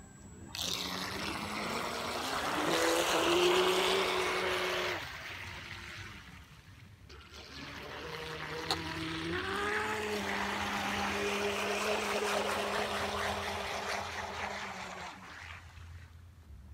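Brushless electric motor of a 1/12-scale radio-controlled Bluebird K7 model hydroplane running at speed, a steady whine over the rush of its hull on the water. The pitch climbs as it throttles up about a second in and drops away near five seconds. It then climbs again, holds, and fades near the end.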